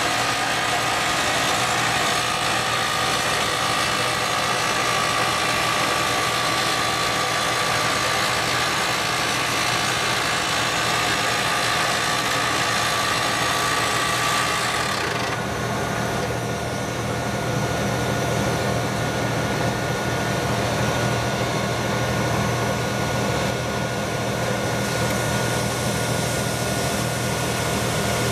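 Excavator-mounted EX-Drill 400 top-hammer rock drill on T45 rods drilling into rock: a loud, steady mechanical din. About halfway through, the sharp upper part of the sound drops away, leaving mostly a low steady hum from the machine.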